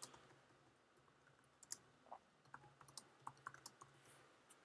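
Faint typing on a computer keyboard: irregular key clicks, most of them in the second half.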